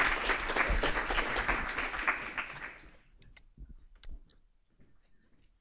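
Audience applauding, the clapping dying away about three seconds in. A few soft knocks and clicks follow from a handheld microphone being passed between speakers.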